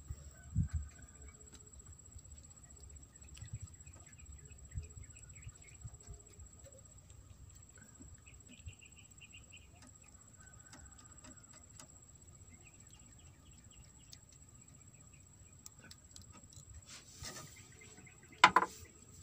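Quiet outdoor ambience with a low rumble and faint bird chirps now and then, and a brief sharp loud sound near the end.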